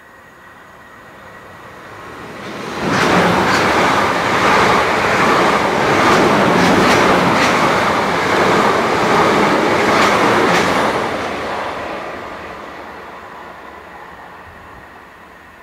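Passenger train passing close by at speed. A building approach leaps up as it comes alongside about three seconds in. Then comes a steady rush of wheels on rail with sharp clicks at the rail joints, twice as a pair half a second apart, and it fades away as the train recedes.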